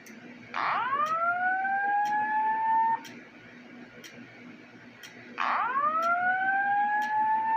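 Simplex TrueAlert speaker strobes sounding the slow-whoop evacuation tone at low volume: two rising sweeps, each about two and a half seconds long. This is the alert tone that comes before the voice evacuation message.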